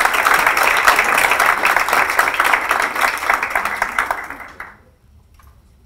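Audience applauding, the clapping fading out about four and a half seconds in.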